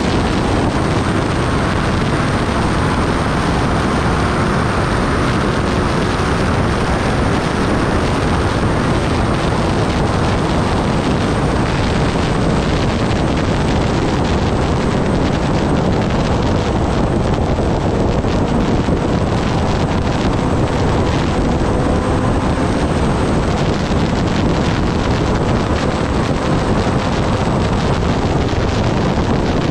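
Heavy wind rush on the microphone at highway speed, with the Kawasaki ZX-10R's inline-four engine running steadily underneath at cruising revs.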